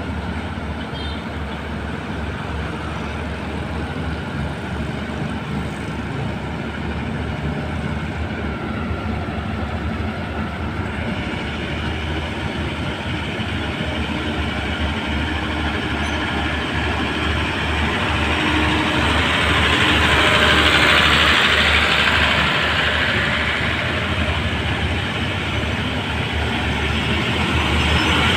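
Passenger coaches of a departing express train rolling past the platform: a steady low hum under wheel-on-rail rumble and rattle that grows louder as the train gathers speed, loudest about twenty seconds in.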